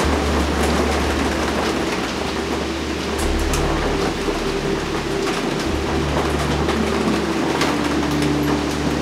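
Ambient meditation music of sustained low drone notes that shift to new pitches a couple of times, over a steady hiss of rain.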